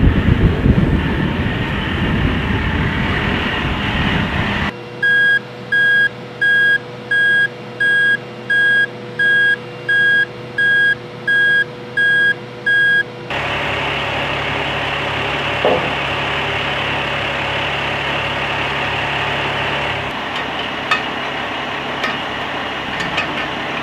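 Heavy truck noise at first. About five seconds in, a truck's warning beeper sounds about a dozen evenly spaced beeps over eight seconds above a steady hum. Then the truck's engine runs steadily, with a faint pulsing and a few clicks near the end.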